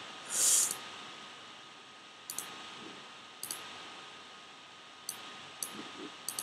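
Computer mouse clicks, a handful of sharp single clicks spaced about a second apart, over a faint steady hum. A short hiss about half a second in is the loudest sound.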